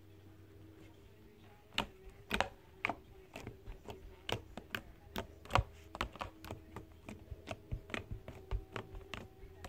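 Slime being squeezed and kneaded by hand, giving off a run of sharp little clicks and pops, irregular and about two or three a second, starting about two seconds in.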